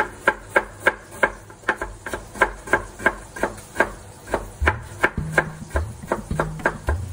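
Chef's knife slicing ginger into thin strips on a wooden cutting board: a steady run of sharp knife-on-board knocks, about three a second.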